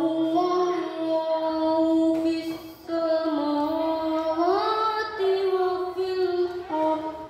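A boy's voice reciting the Quran in melodic tilawah style through a microphone: long held notes with gliding ornaments in two phrases, with a brief breath about 3 seconds in and the pitch lifting and falling back in the second phrase.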